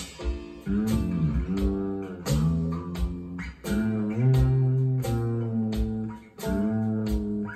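Guitar-led music with a steady beat, played through a pair of Celef LS8 two-way bookshelf speakers in a room.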